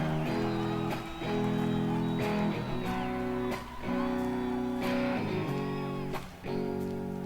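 Live rock band recording: a clean guitar strums a slow chord progression, the chords changing about once a second, with no vocals yet.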